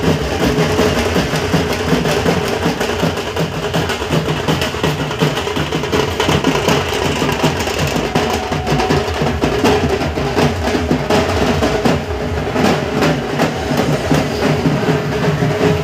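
Dhol drums beaten in a fast, steady processional rhythm, with a held note sounding alongside.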